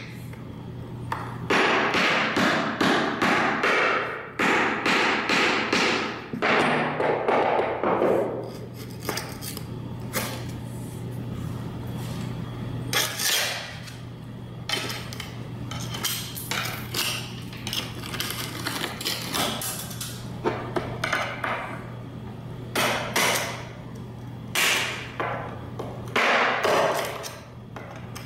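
A hammer driving a screwdriver into hard grout between ceramic floor tiles to chip it out: dense runs of rapid sharp strikes for the first several seconds, then shorter bursts with pauses. The grout is so hard that the worker thinks it is cement. A steady low hum runs underneath.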